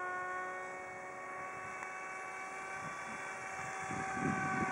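RC model F-22 Raptor's motor whining steadily at one pitch as it flies overhead, fading slightly and then growing louder toward the end. It is working hard: barely enough thrust to keep the model flying.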